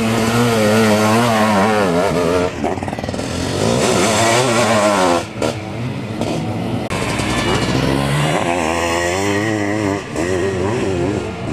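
Several sidecar motocross outfits racing, their engines revving up and down, rising and falling in pitch as the riders work the throttle over the dirt track. More than one engine is heard at once, with brief dips as machines pass.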